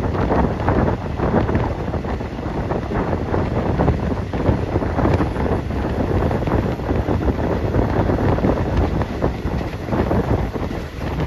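Wind buffeting the microphone: a loud, rushing noise, heaviest in the low end, that flutters rapidly and never lets up.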